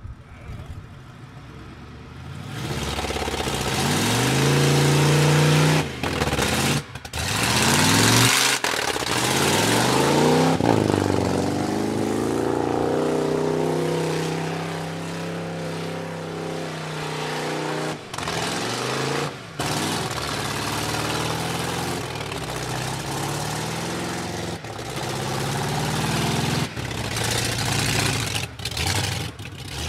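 Ford F-150 pickup's engine revving up and down repeatedly as the truck pulls slowly through mud. It needs a lot of throttle before it moves, which the crew puts down to low fuel or a failing transmission.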